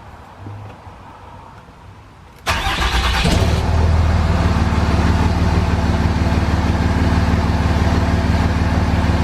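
Dodge Ram's Cummins diesel engine cranked by the starter about two and a half seconds in, catching after about a second and settling into a steady idle.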